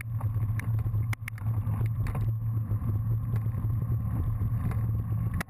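Wind and road rumble on a bicycle-mounted action camera riding at race speed: a steady low rush with scattered clicks and rattles, briefly dropping out about a second in.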